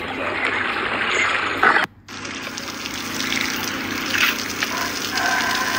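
Water splashing in a swimming pool as a lion cub swims. A brief cut just before the two-second mark is followed by a steady rush of running water as a lion is bathed.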